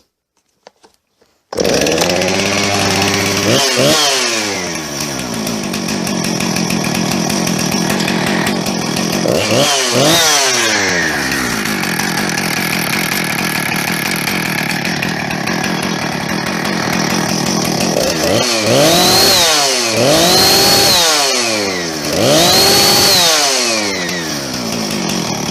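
Husqvarna 455 two-stroke chainsaw catching about a second and a half in and running, after starting in two pulls despite long storage. It settles to idle, with five revs of the throttle, three in quick succession near the end.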